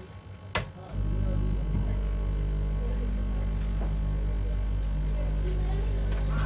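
Hot-air rework station switched on with a click, its blower and mains hum starting about a second in and running steadily, as it is brought up to lift an IC off a phone board.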